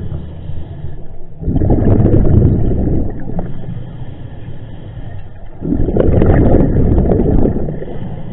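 Scuba regulator exhaust underwater: two bursts of exhaled bubbles, each about a second and a half long and roughly four seconds apart, with a quieter hiss between.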